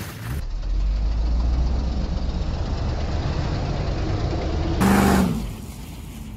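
Hummer H2's V8 engine running as the truck drives close by through thick mud, its tyres churning the mud. A brief louder surge comes about five seconds in, then the sound fades as it moves away.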